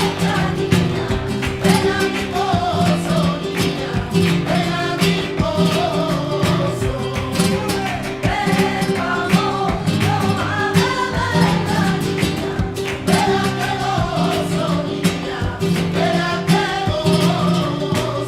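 Flamenco Christmas carol (villancico): a voice singing over strummed flamenco guitar with a steady beat.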